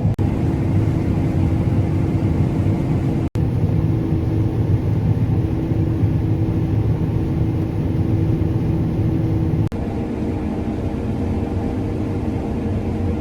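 A combine harvester's engine and machinery running with a steady drone. The sound cuts out for an instant twice.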